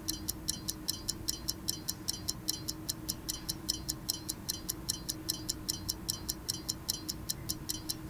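Stopwatch ticking sound effect: quick, even ticks, about five or six a second, over a low steady tone.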